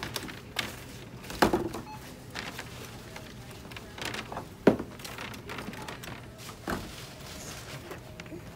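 Scattered thuds and knocks of shopping items being handled and set down, with the two loudest about a second and a half in and just under five seconds in.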